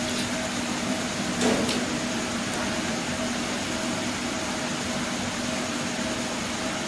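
Steady machine hum with a constant hiss and two unchanging tones, and a brief louder noise about a second and a half in.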